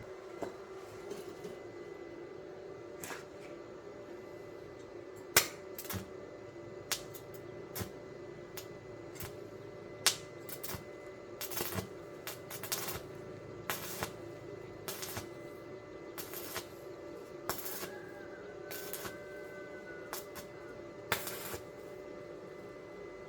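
Irregular metallic clinks and knocks as metal pieces and tools are handled, with some short, louder bursts, over a steady low hum.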